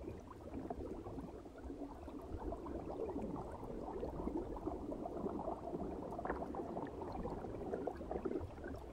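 Faint, steady bubbling and churning of water in a large aquarium tank.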